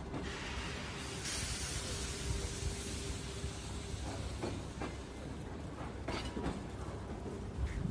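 Moving Russian Railways passenger train: a steady rolling rumble with a hiss over the first few seconds, then a few sharp clacks of the wheels over rail joints in the second half.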